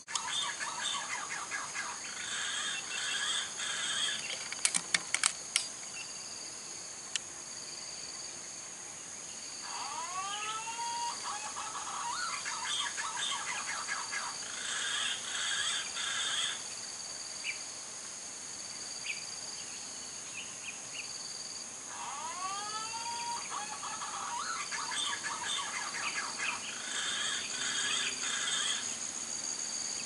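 Outdoor ambience of wild birds and insects: a steady high insect drone with a pulsing chirp under it, patches of bird chirping, and two phrases of arching whistled bird notes about ten and twenty-two seconds in. A few sharp clicks come around five seconds in.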